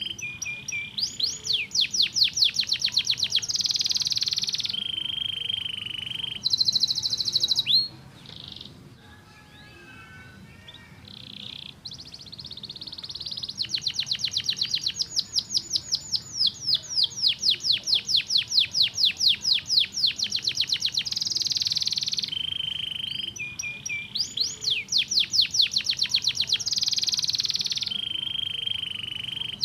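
Domestic canary singing long song phrases: fast trills of rapidly repeated notes alternating with buzzy rolls and held steady tones. There is a quieter, sparser stretch about a third of the way in.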